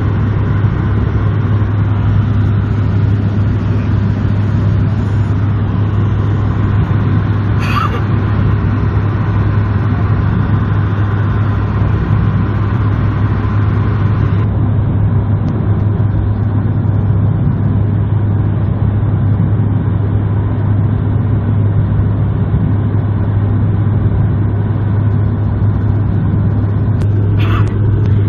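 Steady low propeller drone and airflow noise in the cabin of a Bombardier Q400 turboprop in flight on a single engine. Two brief, short sounds break in, one about a third of the way through and one near the end.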